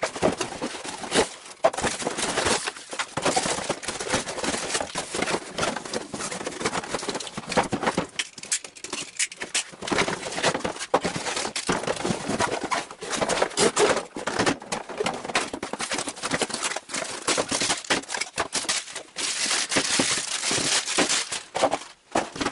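A cardboard toy box being opened and unpacked by hand: cardboard flaps and inserts scraping and rustling, plastic bags crinkling, and hard plastic parts knocking on a tabletop, in a busy, irregular run of small noises.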